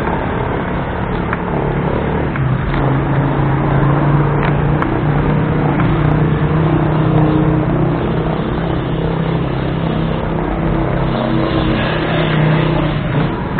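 Motor vehicle engine running steadily, with a low hum that wavers slightly, over rough road and wind noise.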